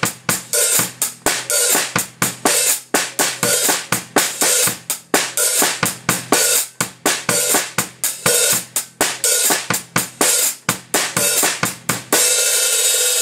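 Drum kit playing a written snare and bass drum figure over a steady hi-hat pattern, with the hi-hat worked open and closed by the foot pedal. Near the end the playing stops on a cymbal crash that is left to ring.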